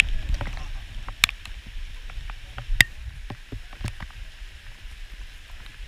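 Movement and handling noise: a low rumble with scattered sharp clicks, the two loudest about a second apart near the start and middle.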